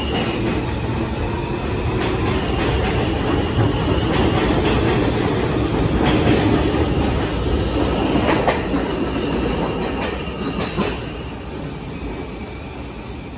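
New York City subway J train pulling out of an underground station, wheels clacking over the rail joints. The sound is steady and loud, then fades from about ten seconds in as the last car leaves down the tunnel.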